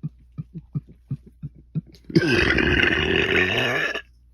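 A person's loud, rough burp lasting about two seconds, coming about two seconds in. Before it comes a run of quick, low, croaking pulses, about five a second.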